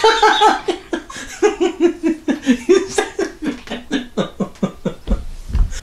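A fit of helpless laughter: a long run of quick, high 'ha' pulses that slide steadily down in pitch and tail off near the end.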